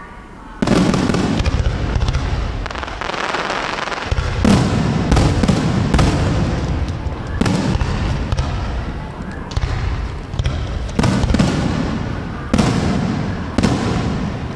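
Aerial firework shells bursting in a rapid series of loud bangs, about ten in all and a second or so apart, each leaving a long rumbling echo that overlaps the next.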